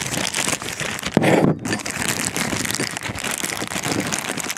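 Clear plastic parts bag crinkling and rustling close to the microphone as hands handle it and reach inside. There is a louder burst of crinkling about a second in.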